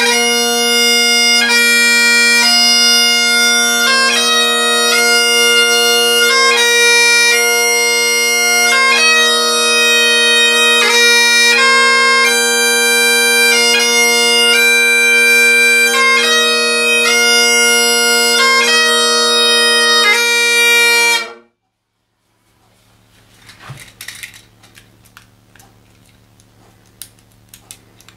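Great Highland bagpipe playing: steady drones under the chanter's melody. The pipes stop abruptly about 21 seconds in, followed by faint clicks.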